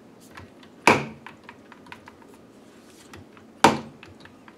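Sprayer head of a Kohler semiprofessional pull-down kitchen faucet, pulled out and let go, springing back on its coil-spring neck and knocking against the faucet and the cutting board behind it: two sharp knocks with a short ring, about three seconds apart.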